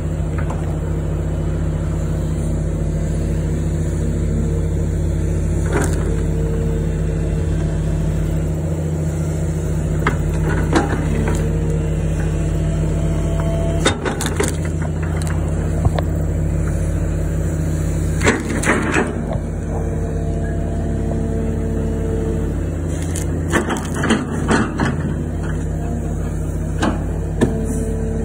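Case 9020B hydraulic excavator's diesel engine running steadily under load, with a higher whine that comes and goes as the boom and bucket work. Scattered cracks and knocks as the bucket digs and pries at a large tree stump and its roots, several in quick succession near the middle and again toward the end.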